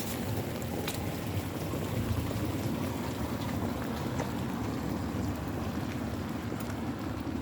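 Steady rain falling on a wet street, with a low rumble that swells about two seconds in and a few sharp taps of drips.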